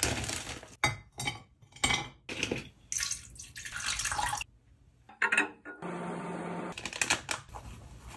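A plastic zip bag is opened and rice cakes are dropped into a glass dish with a few knocks. Water is then poured from a plastic bottle into the dish for about a second and a half. A short steady hum and more clatter follow near the end.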